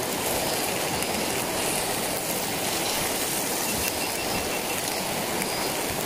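Mountain stream rushing over rocks: a steady, even wash of water noise.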